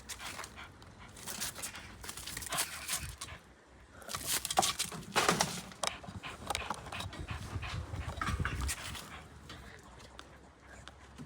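A pet dog panting and scuffling about while playing, with a string of short knocks and rustles that are loudest in the middle.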